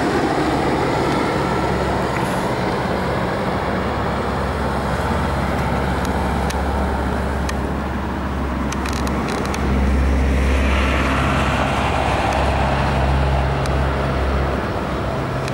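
Red SBB electric locomotive hauling double-deck passenger coaches approaching round a curve: a steady running noise with a low hum, growing louder about ten seconds in.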